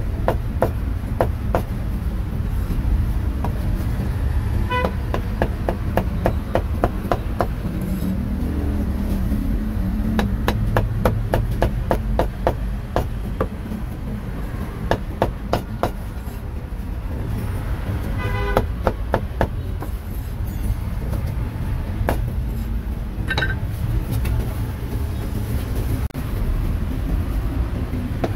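Cleaver chopping cooked meat on a wooden block in quick runs of sharp knocks, several a second. Steady traffic rumble underneath, with brief vehicle horn toots about five seconds in, near the middle and again later.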